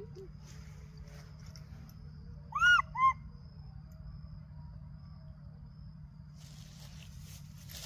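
A baby macaque giving two short, high-pitched calls in quick succession, each rising and then falling in pitch, loud and close. A steady low hum lies under it, and a rustling noise starts near the end.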